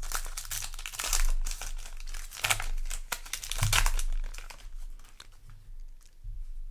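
Yu-Gi-Oh! booster pack's foil wrapper crinkling as it is handled and torn open, busy for about four seconds and then much quieter.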